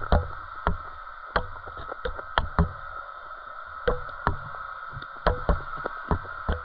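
Irregular knocks and clicks, about two a second, picked up underwater by a GoPro, over a steady hum.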